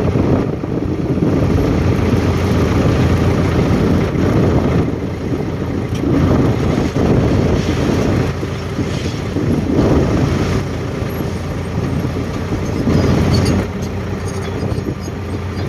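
A heavy vehicle engine running steadily, its level swelling and easing a few times, with wind buffeting the microphone.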